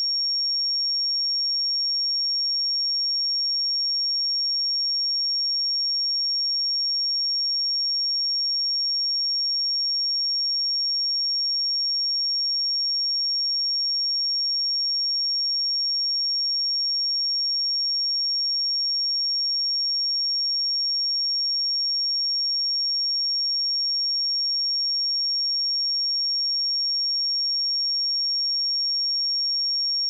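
A pure 5543 Hz sine-wave test tone, one steady high-pitched note held unchanged.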